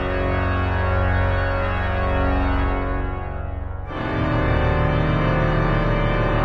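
Pipe organ playing sustained full chords over a deep pedal bass. The sound thins briefly about three and a half seconds in, then a new, fuller chord enters about four seconds in.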